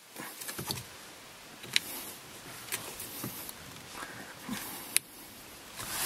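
Soft handling rustles and a few sharp little clicks from a stiff wire being bent by hand and fitted against the steering column as a horn-contact bracket.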